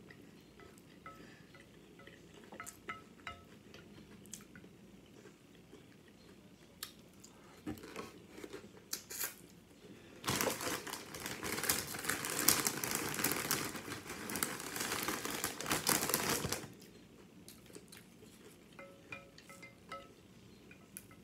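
Eating nachos: scattered faint crunches and clicks of tortilla chips and fingers at the plate. About ten seconds in comes some six seconds of loud, dense crinkling and crunching, then faint clicks again.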